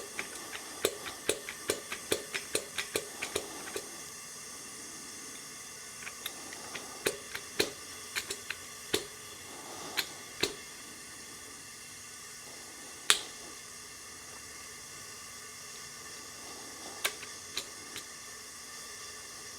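Sharp metallic clicks and taps from a valve spring assembly on a Pontiac Fiero 2.8L V6 cylinder head being worked up the valve stem by hand, with its seal. The clicks come in a quick run of about three or four a second at first, then singly and scattered, with one louder click near the middle.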